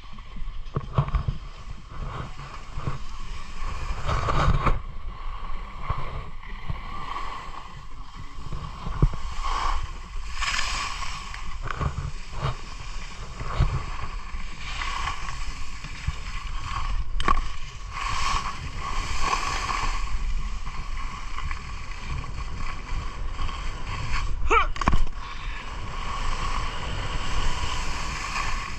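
Skis sliding and carving on packed snow, a steady hiss and scrape that swells and fades from turn to turn, with wind rushing over the microphone. A sharper scrape comes a few seconds before the end.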